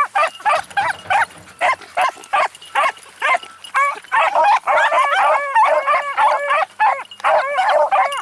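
Beagles baying in rapid, short, repeated calls that overlap at times, the sound of a pack giving voice while running a scent trail.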